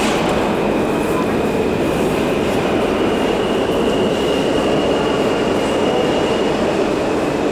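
New York City subway trains running through the station, a steady loud rumble with a thin high wheel squeal held over it.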